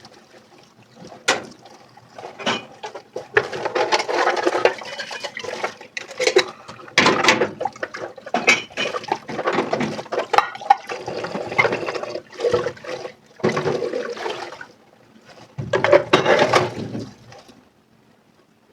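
Water splashing and running over dishes in a kitchen sink, coming and going in uneven spells, with sharp clicks of dishes knocking together. It stops about a second before the end.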